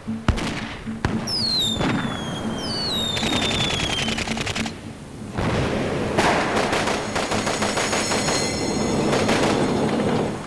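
Battle sound effects: two falling whistles like incoming shells, a rapid burst of machine-gun fire, then several seconds of dense gunfire and blasts.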